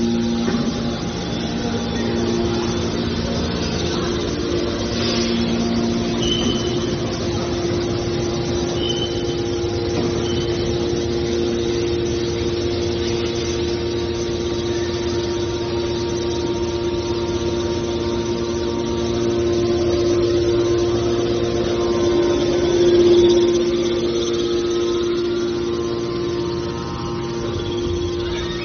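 Mini aluminum can baler running: a steady machine hum with one strong tone, swelling briefly about three-quarters of the way through.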